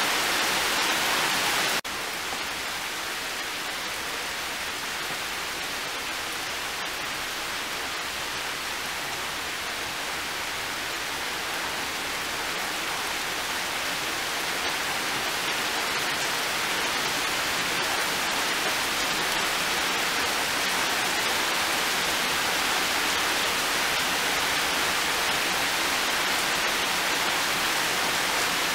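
Heavy rain falling steadily on leaves and a metal-clad box, an even hiss of rain. About two seconds in the level drops suddenly, then slowly builds back up.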